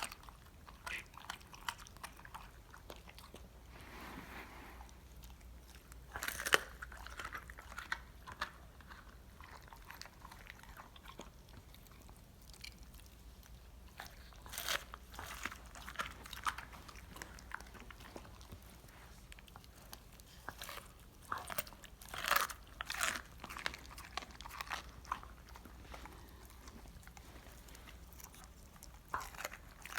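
A dog crunching and chewing the bones of a raw Cornish hen, in irregular bites with quieter gaps between bursts of crunching.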